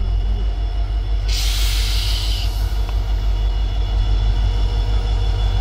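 Diesel locomotive hauling a passenger train into the station: a deep, steady engine and rail rumble, with a short burst of hissing for about a second just over a second in.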